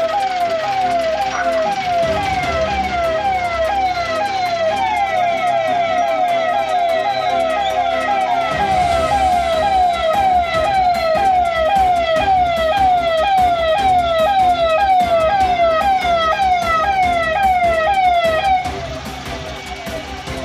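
Police vehicle's electronic siren, a quick falling sweep repeated about twice a second, that cuts off suddenly near the end. A low rumble joins it about halfway through.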